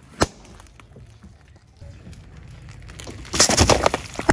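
A balloon pops with a single sharp bang under a car tyre about a quarter second in. Near the end, a water-filled plastic bottle crackles and bursts under the tyre, with a rush of splashing water over a low rumble of the rolling car.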